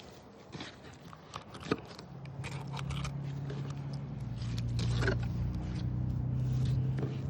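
A few scraping clicks and knocks, then a small motor starts about two seconds in and hums steadily with a low, even pitch.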